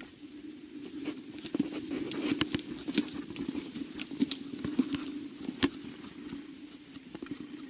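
Footsteps crunching over dry leaves and brush, with scattered irregular crackles and clicks, thickest in the middle, over a steady low hum.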